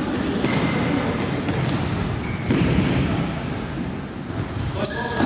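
Futsal ball being kicked and bouncing on a wooden gym floor, with several short, high sneaker squeaks on the boards, in a large reverberant hall.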